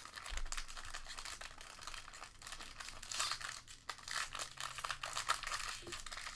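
Foil wrapper of a 2015 Bowman Draft baseball card pack crinkling and crackling as hands pull it apart and tear it open.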